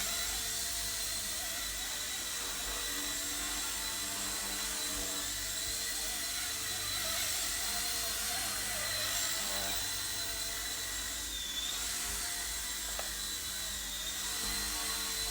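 Eachine E129 micro RC helicopter in flight, its small electric motors and spinning rotor giving a steady high whine whose pitch wavers as it turns, with a brief dip about eleven seconds in.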